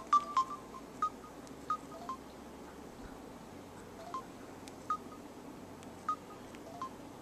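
Mobile phone keypad tones as a text message is tapped out on its touchscreen: a short beep with each key press, a dozen or so at uneven intervals, coming quickest near the start.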